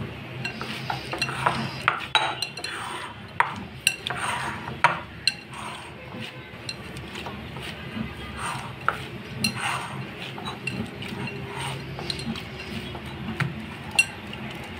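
Pizza dough being kneaded by hand in a cut-glass bowl: soft squashing and rubbing of the dough, with irregular sharp clicks and clinks of hands and dough against the glass.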